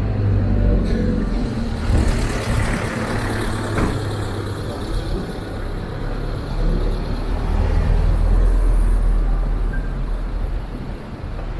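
A motor vehicle running close by in the street: a low engine rumble over general street noise, swelling about eight seconds in.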